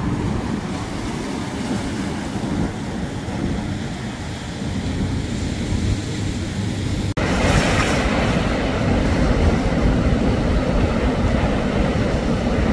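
Ocean surf breaking and washing over rocks, with a steady low rumble of wind on the microphone. About seven seconds in it cuts suddenly to louder, hissier surf.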